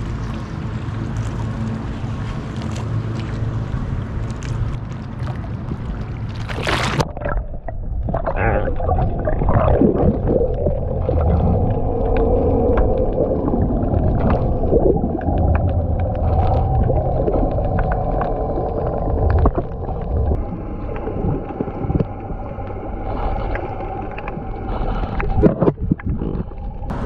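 Bay water sloshing and wind at the surface, then a splash about seven seconds in as the pole-mounted action camera is plunged underwater. From then on the sound is muffled: a low underwater rumble with a steady droning hum.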